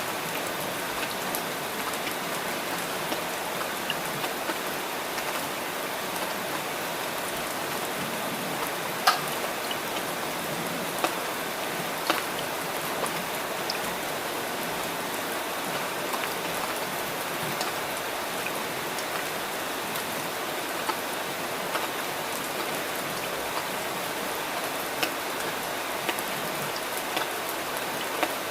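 Steady rain, an even hiss with scattered sharper drops ticking through it; one drop about nine seconds in stands out louder than the rest.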